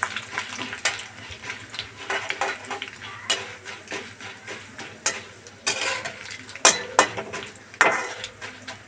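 A metal spoon scraping and clinking against a metal kadhai as urad and chana dal are stirred in hot oil, with a light frying sizzle underneath. The scrapes and clinks come irregularly, the sharpest ones near the end.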